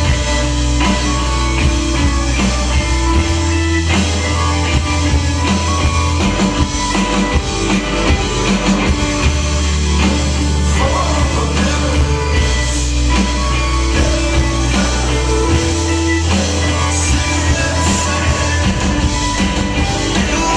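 Live rock band playing: a singer into a microphone over electric guitar, bass guitar, drums and keyboards, with long held bass notes underneath.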